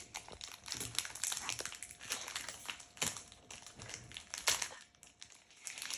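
Crinkling and crackling of a foil Pokémon card booster-pack wrapper being squeezed and pulled at in an attempt to tear it open, in irregular rustles and crackles.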